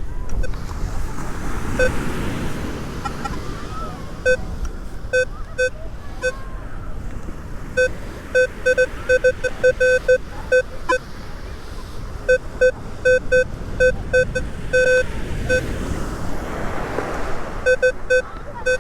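Metal detector beeping as its coil is swept over the sand: short beeps at one low pitch, a few single ones and then fast irregular runs. Wind buffets the microphone, and surf sounds underneath.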